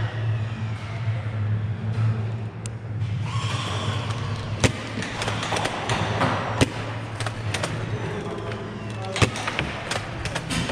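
Foam-dart blasters firing, with darts smacking into plywood barriers: scattered sharp snaps and thuds, thickest in the second half, over a steady low hum.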